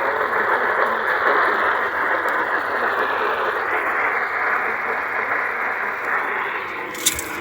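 Steady radio static hiss heard through a narrow, telephone-like band, with a sharp click and a few crackles near the end.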